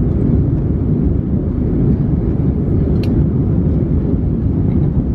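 Steady low rumble of an airliner in flight, heard from inside the passenger cabin: engine and airflow noise with no change in pitch.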